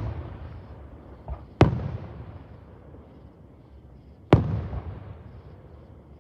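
Fireworks going off: two loud bangs about three seconds apart, each followed by a rumbling echo that dies away over a couple of seconds, with a smaller pop just before the first.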